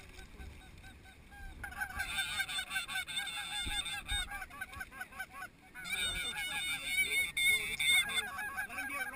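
Chorus of snow goose calls: many overlapping short, high honks in quick succession, starting about a second and a half in with a brief lull midway.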